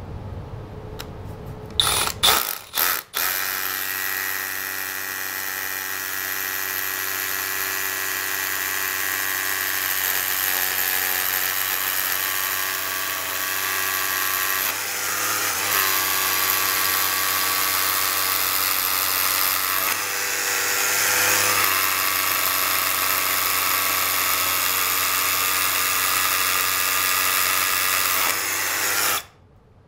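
Milwaukee M12 cordless SDS rotary hammer drilling a Tapcon anchor hole into a concrete wall: a couple of short starts, then one steady run of motor whine and hammering that stops just before the end.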